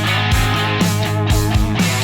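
Background rock music with electric guitar and a steady drum beat, about two beats a second.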